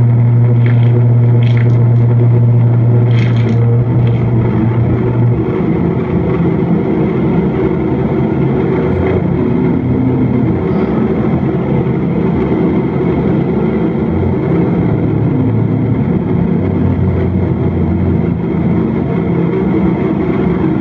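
Loud electronic noise music from a rig of effects pedals and a mixer. A steady low drone holds for about five seconds under a few short high crackles, then breaks into dense rumbling noise with low tones that shift.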